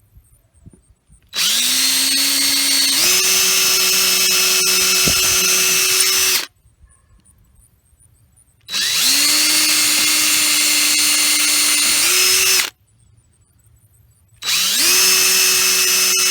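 Power drill boring pilot holes into a 2x4 with a small 7/64-inch bit. There are three runs of a few seconds each, with short pauses between. Each run starts with a rising whine and steps up in pitch partway through.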